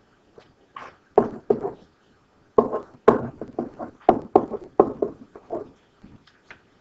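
Stylus writing on an interactive display screen: a run of irregular sharp taps and short scratches as the letters of a word are written.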